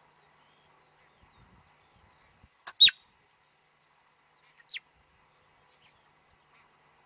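Marmot calls: two short, sharp, high-pitched whistles that sweep downward in pitch, the first and loudest about three seconds in, the second about two seconds later. These are the marmot's alarm whistles.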